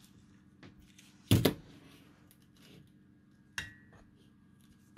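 A few clicks and knocks of tools and parts being handled on a workbench. The loudest is a double knock about a second and a half in, and a sharp click with a brief ring comes about three and a half seconds in.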